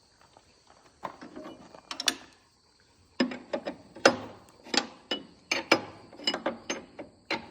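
Wrench turning a bolt on a combine's feeder house drum-height cam: a run of sharp metal clicks, sparse at first, then about two a second from about three seconds in, as the adjustment is tightened back up.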